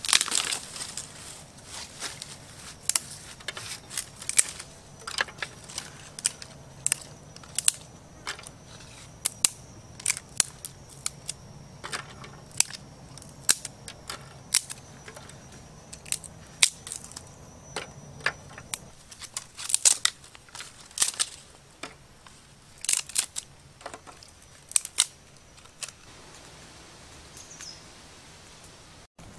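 Dry twigs snapped by hand and packed into a small clay stove: sharp, irregular cracks, about one or two a second, dying away near the end.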